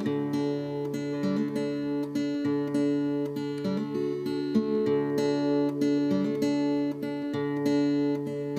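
Background music: acoustic guitar picking and strumming a steady sequence of notes.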